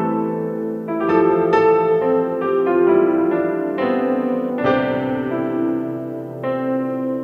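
Piano music: a slow melody of single struck notes over held chords.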